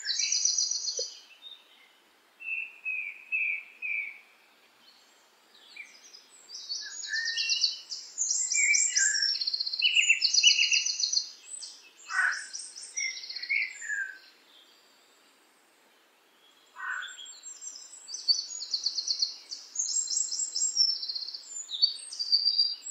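Songbird song: runs of high, rapid trills and chirps, broken by pauses of a second or two, with a couple of quick downward-sliding notes.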